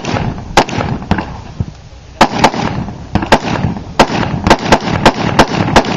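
Rapid gunfire from a competitor shooting a 3-gun stage: about fifteen sharp shots. There are a few spaced shots at the start, a pause about a second in, then quick strings of roughly three to four shots a second.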